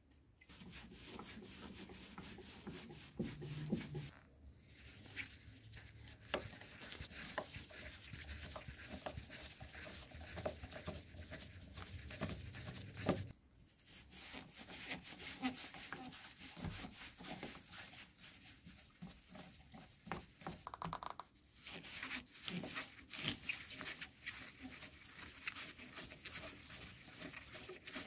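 A flat-blade screwdriver scraping and turning rusty screws in the housing of an old electric straight grinder, with irregular rubbing, scraping and light metal clicks as the tool is handled. Two short breaks come about four and thirteen seconds in.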